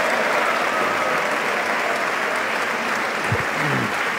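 Large crowd applauding steadily, with dense clapping throughout; a brief thump and a short snatch of a voice are heard about three and a half seconds in.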